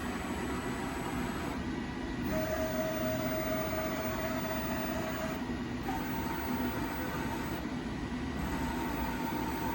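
Milltronics ML22 CNC flat bed lathe running with a steady mechanical noise. A steady whine from its axis drives sounds as the X and Z axes move: one tone from about two seconds to five seconds in, then a higher one from about six seconds on.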